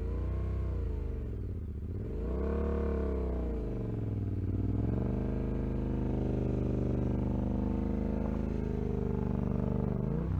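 Yamaha Ténéré 700's parallel-twin engine revving up and back down twice, then pulling steadily with slowly rising revs as the bike climbs a rocky track under load. The bike is being ridden on a failing clutch whose lever has no free play.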